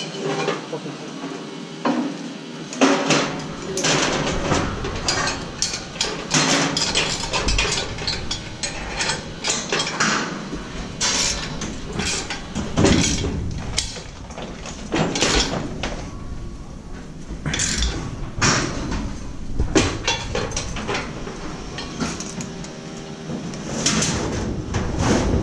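Steel scaffold tubes and perforated steel scaffold decks clanking and knocking together as they are handled and set in place, in many irregular metallic strikes. A low hum starts about three seconds in.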